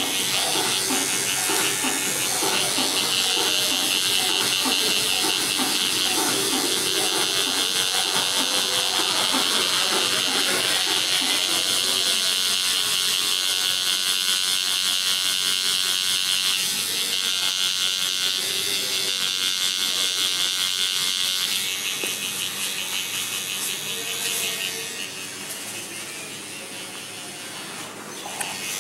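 Electric tattoo machine buzzing steadily as its needle works colour into the skin of a forearm. The buzz becomes quieter about three quarters of the way through.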